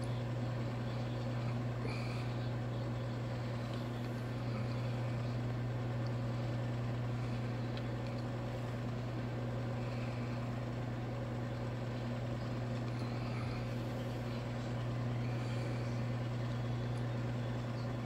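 Microwave oven running: a steady low hum.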